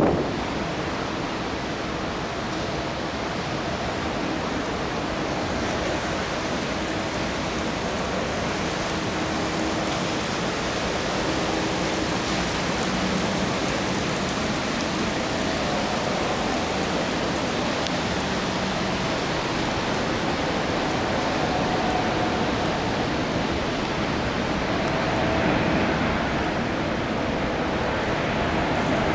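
Steady rushing noise of a Boeing 787-10's jet engines on arrival, mixed with wind noise, with faint engine tones that slowly drop in pitch.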